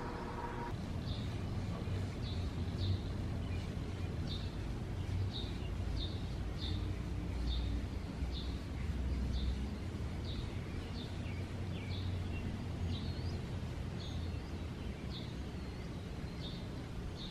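A small bird chirping over and over, roughly one short high call a second, over a steady low rumble.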